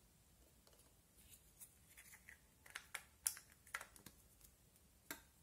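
Faint, scattered clicks and taps of small plastic monster-shaped toys being handled and set down on a glass plate. Most come in a cluster in the middle, with the sharpest about three seconds in and one more near the end.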